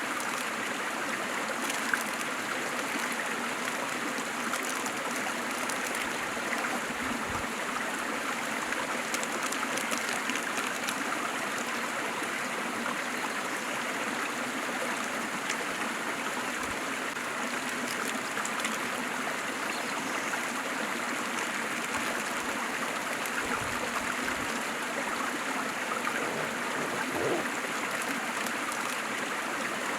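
Waterfall: a steady, even rush of falling and running water, with a few small sharp splashes here and there.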